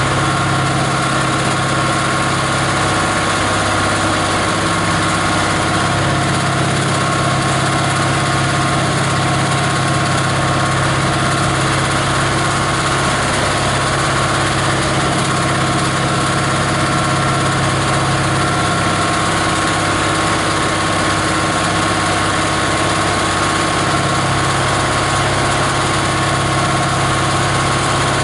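Small 18 HP diesel engine running steadily, driving a plastic grinder.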